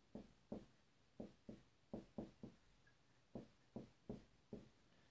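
Dry-erase marker writing on a whiteboard: about a dozen short, faint strokes at an uneven pace as an equation is written out.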